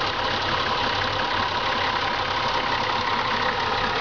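Engine of a Nissan Patrol 4x4 running steadily at low revs as it crawls slowly through deep mud.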